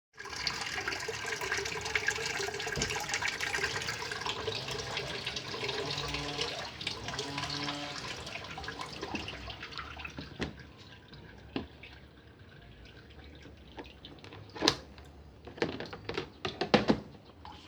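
Water rushing and splashing in a twin-tub washing machine, fading away after about ten seconds, followed by a few sharp knocks and clicks near the end.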